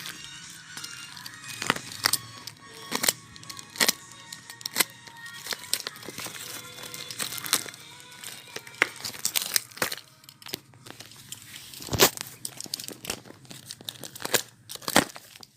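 Plastic packaging of a mini flashlight crinkling and tearing as it is handled, with irregular sharp clicks and knocks, the loudest about twelve seconds in, over background music.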